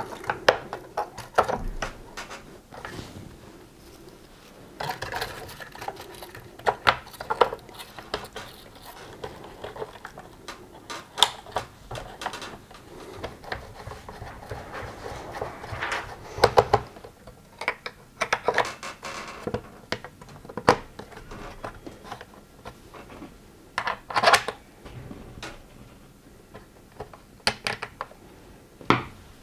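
Hard plastic parts of a Gtech AirRam vacuum's brush head being handled and reassembled: irregular clicks, taps and scrapes as the brush rolls are seated and the end caps are screwed back on with a screwdriver.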